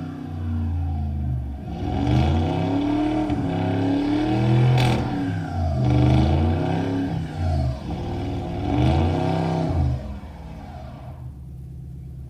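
A motor vehicle's engine revving up and down again and again, its pitch rising and falling every second or two; it drops to a lower, steadier level about ten seconds in.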